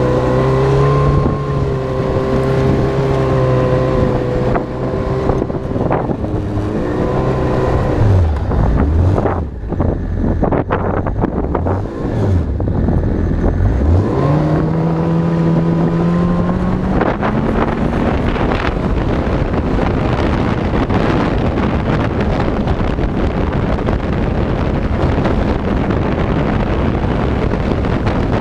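Yamaha snowmobile engine running under way, heard from the rider's seat. Its revs drop and pick up several times near the middle, then climb as it speeds up, and in the second half wind noise on the microphone covers most of the engine.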